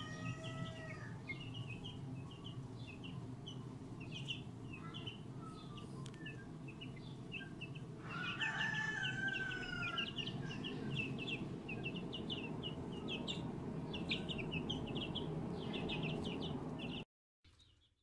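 Egyptian Fayoumi chicks peeping over and over in short, high peeps, with one louder, longer call about eight seconds in. Under them runs the steady low hum of a washing machine.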